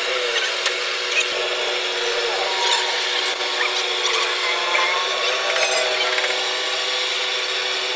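A power tool running steadily with a constant whine and scattered clicks and rattles.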